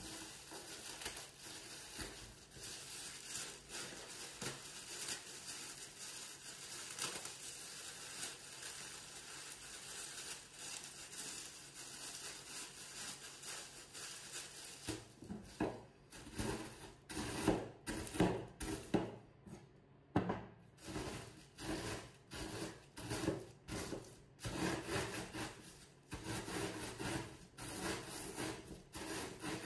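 Clear plastic bag of biscuit crumbs crinkling and rustling as hands press and crush it on a table. About halfway through, the noise changes to repeated rubbing strokes as a wooden rolling pin is rolled back and forth over the bag, crunching the crumbs.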